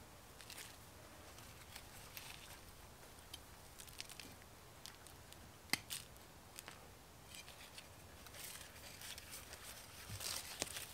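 Faint rustling and crackling of hands working in soil among dry leaves, with scattered small clicks and one sharp click about six seconds in.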